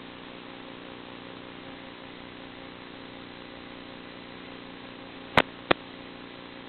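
Steady hiss with a faint hum underneath, typical of the audio channel of an analog FPV video recording. Two sharp clicks about a third of a second apart come about five seconds in.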